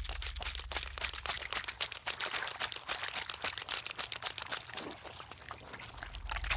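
Foley sound effect: a dense, irregular run of small clicks and crackles, a little sparser near the end.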